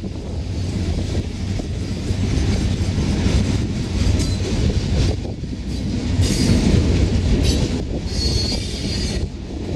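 Freight train cars rolling past with a steady heavy rumble, and wheels squealing in short high bursts about six seconds in and again near the end. Wind buffets the microphone.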